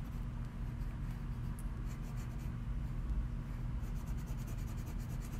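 A Crayola marker rubbing steadily back and forth on a styrofoam printing plate, colouring in an area.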